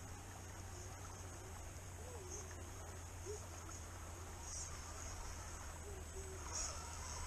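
Faint whine of a radio-controlled scale crawler's electric motor, its pitch wavering up and down as the throttle changes while it creeps over creek rocks, over a steady low rumble.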